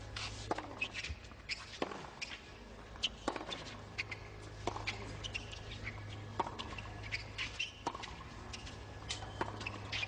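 Tennis baseline rally on a hard court: about eight racquet-on-ball hits, one roughly every second and a quarter, alternating nearer and farther, with short high squeaks of players' shoes on the court between shots.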